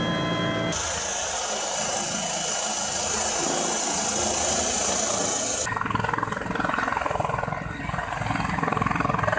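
Helicopter noise in three abrupt cuts: first a steady engine and rotor drone from inside the cockpit, then a high turbine whine over a loud rushing hiss from a helicopter running on a ship's deck, then a rough rushing rotor noise as a helicopter flies low past.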